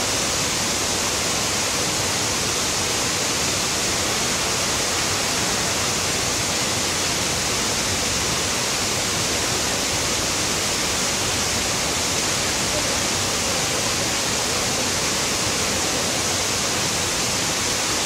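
Steady loud rushing noise of a water treatment plant, even and unbroken, with no sudden sounds standing out.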